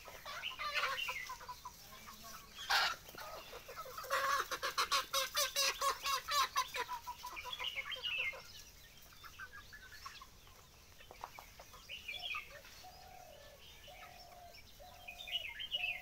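Flock of desi chickens clucking, with a fast run of clucks from about four seconds in lasting a few seconds. Near the end come four short, evenly spaced calls.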